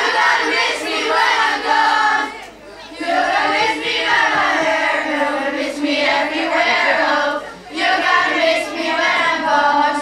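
A group of children singing together in phrases a few seconds long, with short breaths between them about two and a half and seven and a half seconds in.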